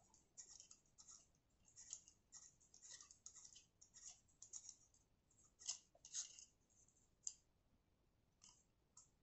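Faint, irregular small clicks and scratches of hands handling a microphone seated in a plastic spider shock mount, the clearest about two-thirds of the way through; otherwise near silence.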